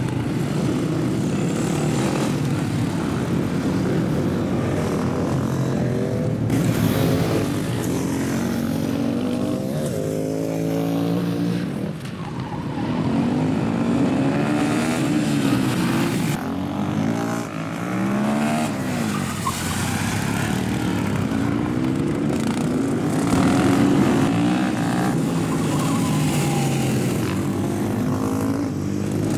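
Several supermoto motorcycles racing: their engines rev up and drop back again and again as the bikes accelerate and shift gears, with more than one engine heard at once.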